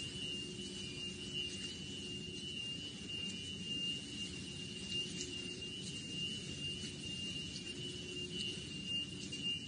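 A continuous high-pitched electronic alarm tone sounding without a break over a low hum and background noise.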